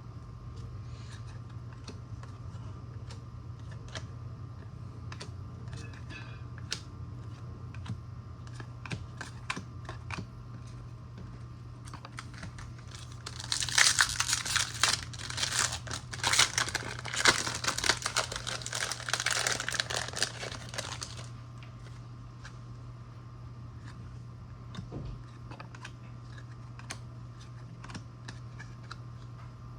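Faint clicks of trading cards being handled, then for several seconds in the middle a trading card pack's foil wrapper crinkling and tearing loudly, over a steady low hum.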